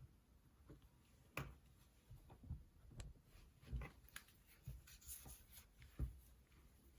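Near silence broken by a handful of faint, irregular clicks and taps, the sharpest about six seconds in. No ringtone is playing.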